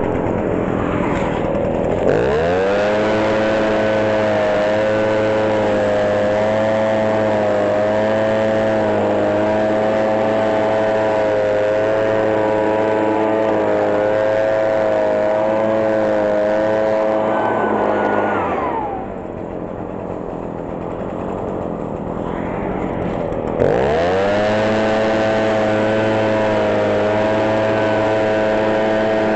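Gas leaf blower's small engine revving up to full throttle about two seconds in and holding a steady whine. Near two-thirds of the way through it drops back toward idle for about five seconds, then revs up again and holds full throttle.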